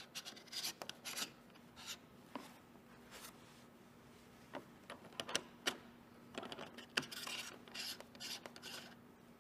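Faint rubbing and light clicks of hand-held metal tool parts: a lock ring being screwed onto a valve-timing angle-sensor adapter and the sensors and their cables being handled and set down on a metal bench. A faint steady hum runs underneath.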